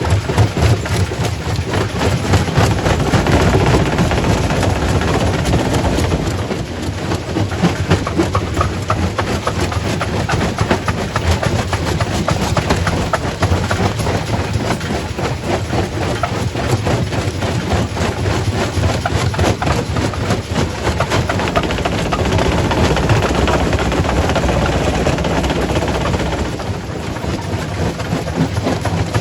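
Quarry primary rock crusher running: a steady low machine drone under a dense, continuous clatter of rock being broken. It swells a little a few seconds in and again past the middle.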